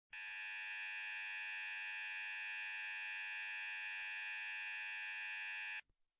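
Electronic emergency-alert buzzer tone: one harsh, steady buzz held for almost six seconds, then cut off abruptly.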